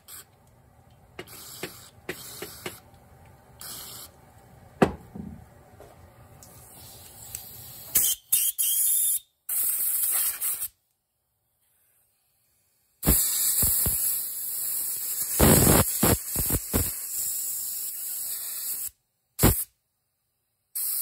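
Compressed air hissing through a carburetor main jet in two blasts, a short one about eight seconds in and a longer one of about six seconds a little later, clearing the jet's passage.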